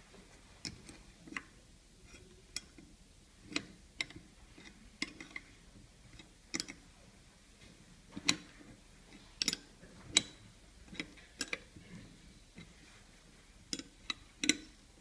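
Irregular sharp metallic clicks and knocks of an open-end wrench working the nuts on a steel chisel-sharpening jig as its clamping bolts are tightened to lock the cold chisel in place.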